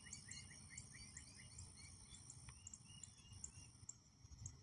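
Faint outdoor ambience: insects trilling steadily at a high pitch, with a run of short rising chirps in the first second or so, over a low rumble.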